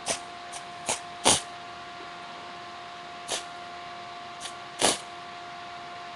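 Canned-air gas duster giving about five short hissing spurts, the loudest just over a second in, sprayed onto a finger to chill it.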